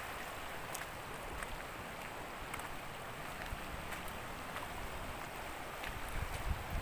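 Steady rushing of a clear hill river flowing over stones, with a few low rumbling bumps near the end.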